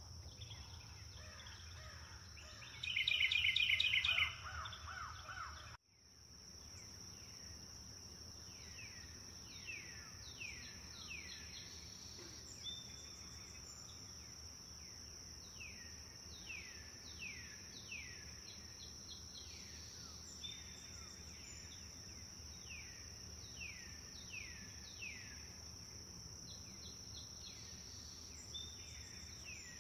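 Outdoor nature ambience: a steady high insect drone, with birds repeating short downward-sweeping calls. About three seconds in comes a louder burst of rapid chirping. The sound drops out briefly near six seconds and fades back in.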